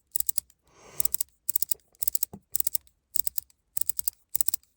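Magnetic fidget ring being turned and worked with a thumb. Its small magnet-driven buttons pop up and snap down in quick clusters of sharp clicks, about two clusters a second. The popping comes from opposing and attracting magnets, not from a mechanical detent.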